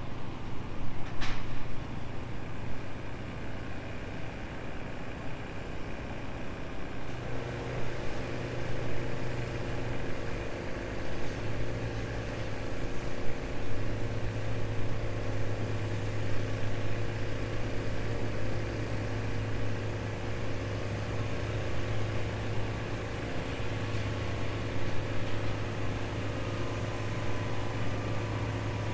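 Fishing boat's engine running at low speed as the boat motors slowly in toward the dock: a steady low hum that fills out with more tones about seven seconds in and grows stronger midway as it comes closer.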